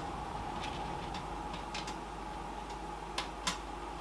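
A few scattered light clicks and taps of small metal parts as an SSD and screws are fitted into a desktop PC case's drive mounting, over a faint steady hum.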